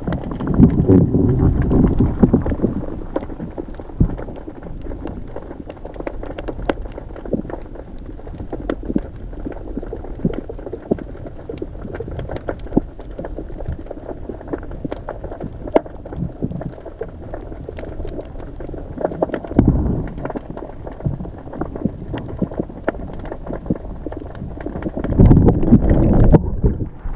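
Muffled underwater sound from a camera held below the surface: a low rumble of moving water with scattered clicks and crackles throughout. Heavier water rushing at the start and again near the end, as the camera nears the surface.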